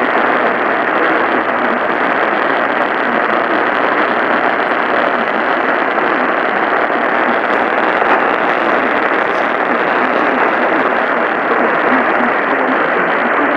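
Steady hiss of AM radio static from a weak, distant station received by DXing, with no programme audio coming through over the noise.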